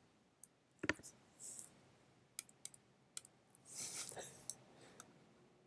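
Faint, scattered clicks of a computer input device used with an on-screen drawing tool, the loudest pair about a second in and single ones spread after. A couple of soft breathy hisses come between them.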